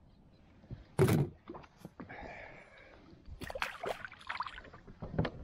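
Splashing close to the microphone as an undersized snapper is let go and splashes at the sea surface, with a loud splash or knock about a second in, a run of smaller splashes around three and a half seconds in, and another loud one near the end.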